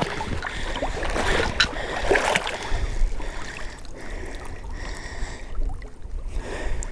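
Pond water sloshing and splashing as a hunter moves through it to a downed teal, then lifts the bird out of the water, dripping, about four seconds in.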